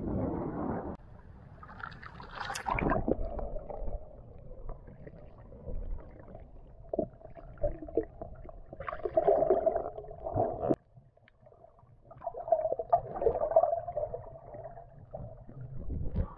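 Muffled underwater sound from a camera submerged in the sea: water sloshing and gurgling around it as a swimmer dives along the bottom. A short splash comes about two and a half seconds in, and another near the end as the camera breaks the surface.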